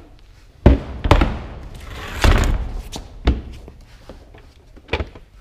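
A small steel safe being tipped and rocked, giving about five knocks and thuds, with a longer rattle midway as loose contents shift inside it, something the man calls jingly.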